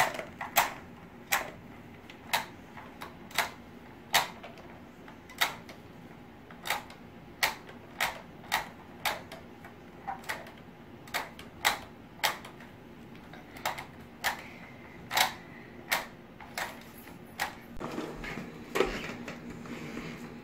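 Sharp plastic clicks, unevenly spaced at roughly one a second, from the Ben 10 Rust Bucket playset's toy elevator tower being worked by hand. Near the end a rougher rolling noise joins in: the toy truck's plastic wheels on a wooden floor.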